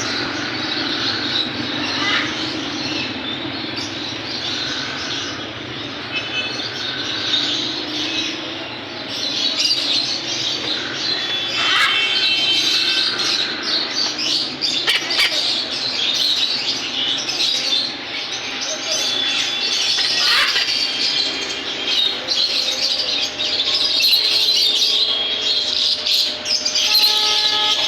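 Many caged pet birds chattering, chirping and squawking at once: a dense, continuous din of short calls, with clearer whistled notes now and then.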